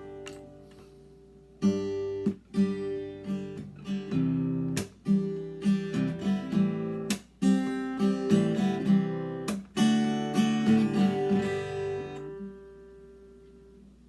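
Takamine 332C acoustic guitar strummed: a short passage of chords with sharp strokes, which rings out and fades near the end.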